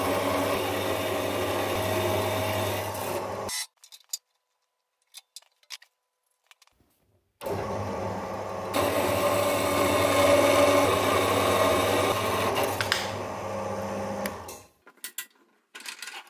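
Horizontal metal-cutting bandsaw running, its blade cutting slots into steel flat bar. The cutting stops abruptly about three and a half seconds in, starts again after about four seconds and runs until near the end, followed by a few light clicks.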